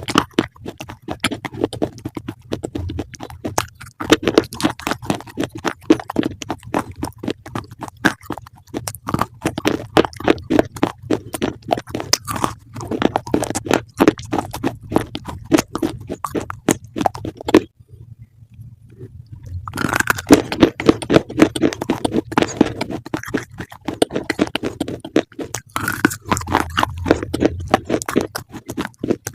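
Close-miked chewing of crunchy food, a fast run of crisp crunches with a brief pause a little past halfway.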